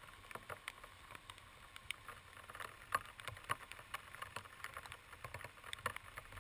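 Faint rush of a whitewater creek rapid, with many irregular sharp ticks and small knocks over it, the loudest about three seconds in.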